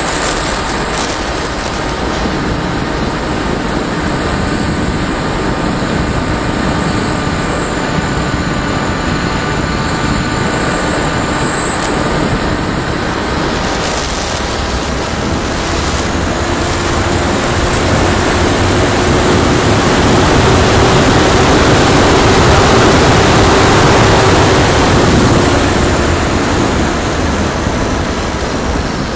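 Onboard sound of a Firstar 2000 motor glider in flight: its motor and propeller run under a steady rush of wind on the microphone. A high whine climbs in pitch and gets louder about halfway through as the motor speeds up, then drops back near the end.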